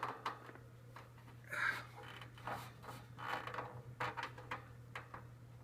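Handling noises from a box fan's grille and cabinet: scattered light clicks, knocks and rustles at irregular intervals, over a faint steady low hum.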